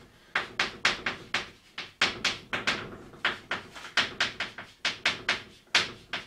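Chalk writing on a blackboard: a quick run of sharp taps and short scratches, several a second, as each stroke of the characters is drawn.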